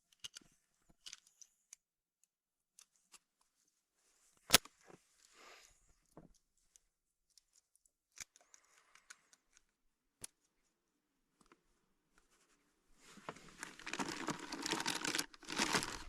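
Scattered light clicks and knocks, with one sharp knock about four and a half seconds in. About thirteen seconds in, a continuous rough rustling noise starts.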